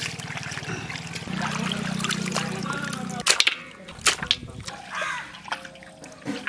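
Water sloshing and splashing as raw chicken pieces are washed by hand in an aluminium basin, with sharp splashes and knocks in the second half as pieces are lifted and dropped. A low buzzing hum runs under the first three seconds.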